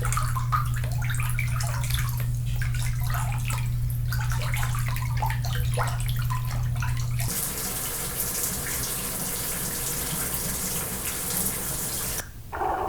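Water splashing and sloshing in a full sink, irregular splashes over a steady low hum. About seven seconds in it switches to a shower running, a steady even hiss, which breaks off just before the end for a different, muffled underwater sound.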